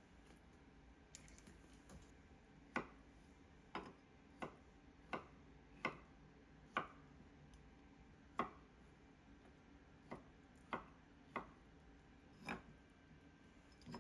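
About a dozen light, sharp knocks of kitchen utensils at irregular intervals of roughly half a second to a second and a half, over quiet room tone, from food being prepared by hand.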